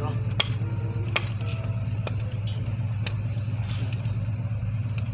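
An engine running steadily with a low hum, with a few sharp metallic clicks about once a second as a steel wire rope and a steel splicing spike are handled.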